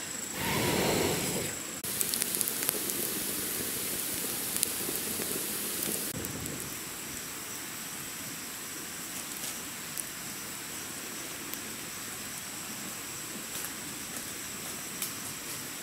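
A short rush of noise about half a second in, then a small wood fire under a cooking pot crackling and hissing steadily, with scattered small pops.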